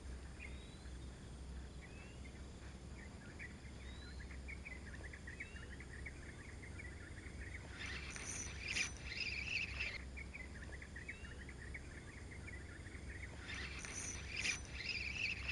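Quiet rural dawn ambience: faint bird chirps and a dense insect trill over a low steady hum, with two louder spells of rapid chirping or clicking about eight and fourteen seconds in.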